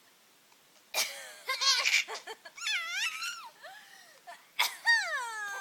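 A sharp cough about a second in, followed by high-pitched laughter with rising and falling squeals. A second cough comes near the end, then one long falling squeal.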